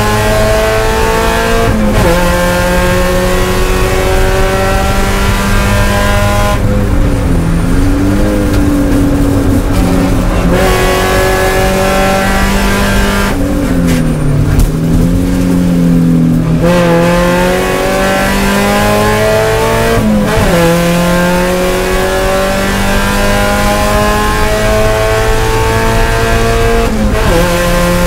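Spec Miata race car's four-cylinder engine heard from inside the cockpit, revving hard under full throttle and climbing in pitch, with upshifts shortly after the start, about two-thirds through and near the end. Twice, about a quarter of the way in and again around halfway, it comes off the throttle for braking, its pitch falling and blipping through downshifts before it pulls up again.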